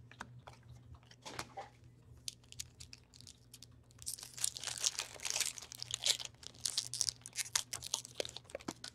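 Scattered light clicks of cards being handled, then about four seconds in the wrapper of an SPX hockey card pack is torn and crinkled, a dense crackling rustle lasting about four seconds.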